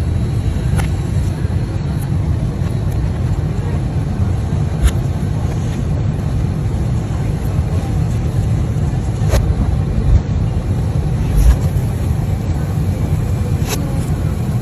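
Steady low rumble of a moving vehicle heard from inside, with a few light knocks and clicks scattered through it.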